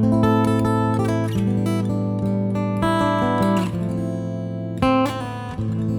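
Guitar playing ringing chords that change every second or so over a held low bass note, with a short sharp accent about five seconds in.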